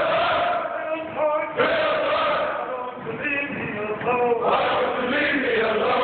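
Men's choir singing, holding notes in several parts and moving from chord to chord, echoing in a large hall.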